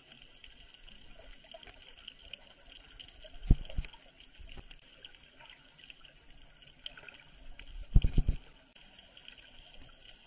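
Muffled underwater sound picked up by a camera submerged in its housing: a faint steady hiss of water, broken by two low muffled thumps, about three and a half seconds in and again about eight seconds in.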